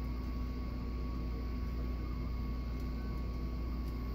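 A steady mechanical hum over a constant low rumble, with a few faint clicks.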